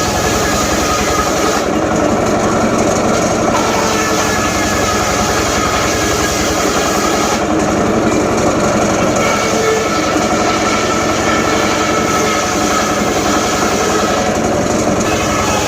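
Homemade circular-saw rig running steadily while its blade cuts teak stock: a loud, even mechanical drone with a fast low pulsing under a steady whine.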